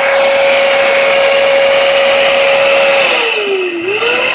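Dyson vacuum cleaner, switched on as dust collection for a drill press, running with a loud, steady high whine over a rush of air. About three seconds in the whine sags lower, then climbs back up.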